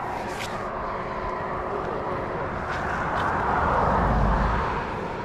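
A passing vehicle: a steady rumbling wash that rises to its loudest about four seconds in, then fades.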